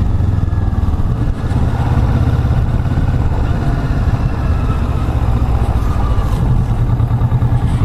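Kawasaki Vulcan S parallel-twin motorcycle engine running steadily, a low, even pulsing beat.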